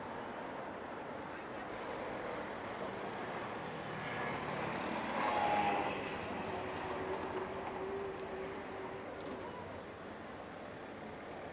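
City street traffic: a steady wash of road noise, with a vehicle passing close by about four to six seconds in.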